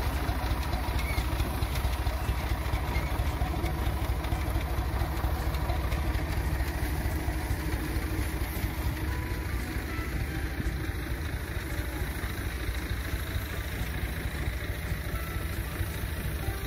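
Tractor engine running steadily at low speed, driving the mounted sprayer's pump, with an even hiss over it; it grows a little fainter about halfway through.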